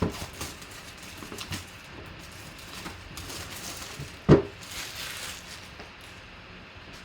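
Cardboard box and packaging being handled and opened: scattered clicks and rustles, a stretch of rustling in the middle, and one sharp knock about four seconds in.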